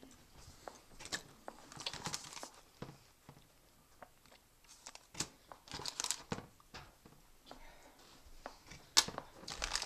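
Packaging being handled and torn open by hand: bouts of crinkling and tearing with scattered clicks and knocks, and a sharp click about nine seconds in.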